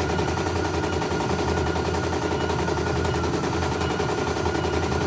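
CNY E900 computerised embroidery machine stitching: a rapid, steady chatter of the needle going up and down as the hoop carriage moves the fabric, with a thin, steady whine over it.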